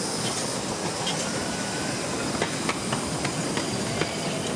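Miniature steam locomotive, a scale Merchant Navy class replica, running past with steam hissing, followed by its coaches rolling by; from about halfway the wheels click sharply on the track.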